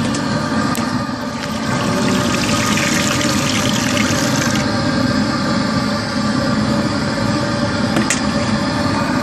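Water pouring from above into a tank packed with hydrogel beads, splashing steadily, over a continuous mechanical hum.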